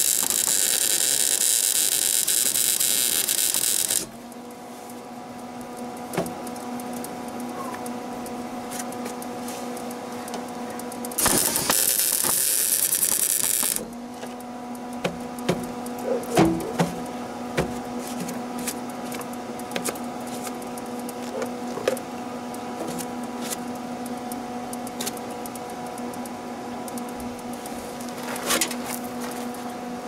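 A 110-volt Lincoln MIG welder laying tack welds, two bursts of steady arc crackle and sizzle: about four seconds at the start and about two and a half seconds around eleven seconds in. Between and after the bursts a steady hum continues, with a few light clicks and knocks soon after the second weld.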